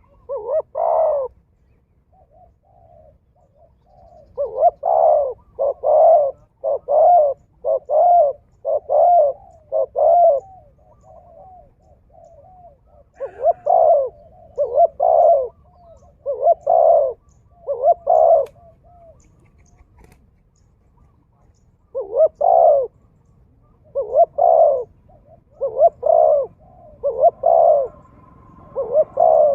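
Pigeon cooing: hoarse notes repeated about once a second in runs of several, with short pauses between the runs.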